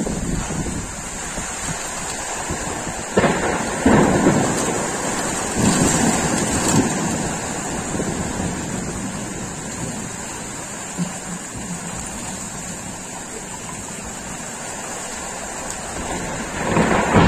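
Thunder during a rainstorm over the steady hiss of rain: a sharp crack about three seconds in and a louder one just after roll into rumbles that slowly die away, then a fresh loud rumble builds near the end.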